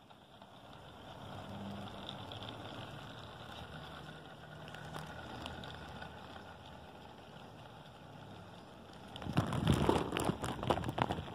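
HO-scale model train running along garden railway track: a steady motor hum and wheel noise, then a louder burst of rattling clicks about nine seconds in.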